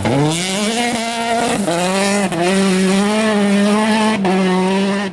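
Rally car engine pulling hard at high revs: the note climbs in the first half second, then holds steady, broken by three short dips.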